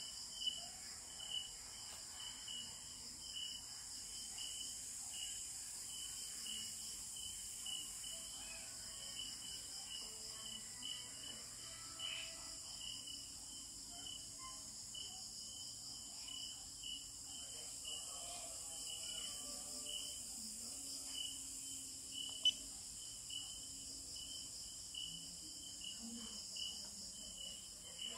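Night insects chirping steadily: a high chirp repeating about twice a second over a continuous high-pitched buzzing chorus. A few faint taps and one sharper click partway through.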